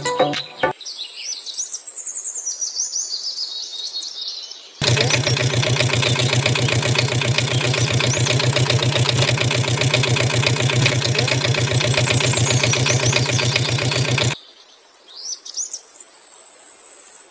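Birds chirping, broken by a loud machine running steadily for about ten seconds, starting and stopping abruptly.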